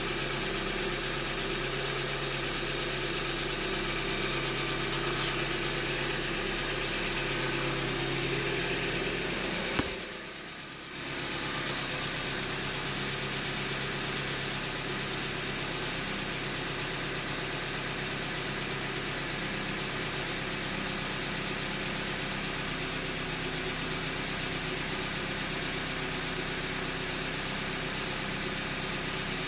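2015 Hyundai Elantra engine idling with a knock, the sign of a failed short block that was put down to a manufacturing defect. About ten seconds in there is a sharp click, then the sound drops for about a second before the idle carries on.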